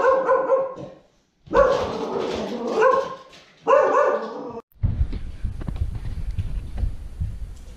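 Mini Goldendoodle barking in three drawn-out bouts under a polar bear rug. About halfway through, the barking gives way to a low rumbling and knocking noise.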